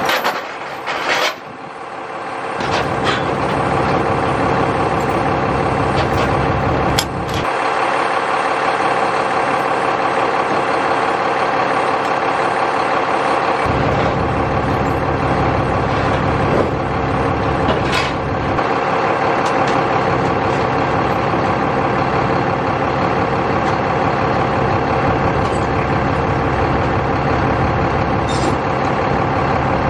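Heavy diesel engine running steadily, its deeper rumble rising and dropping back a few times as the load changes. A couple of sharp metallic clanks stand out over it.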